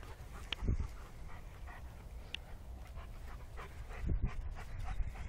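A dog panting, over a steady low rumble, with two dull thumps: one about a second in and one near the end.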